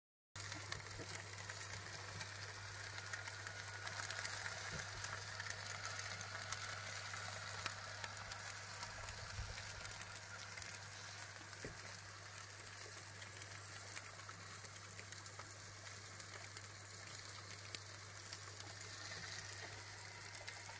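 Food sizzling in a hot pan, a faint steady crackle with scattered small pops over a steady low hum.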